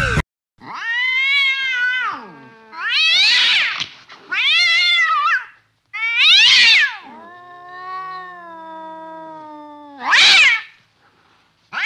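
Domestic cat meowing: five loud, long meows that rise and fall in pitch, with a quieter, lower drawn-out call between the fourth and the fifth.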